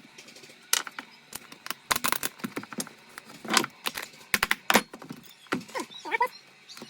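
Metal parts clinking and knocking at an irregular pace: bolts, a nut and a wrench being picked up, set down and fitted while a small wagon wheel's hub and bearing are reassembled.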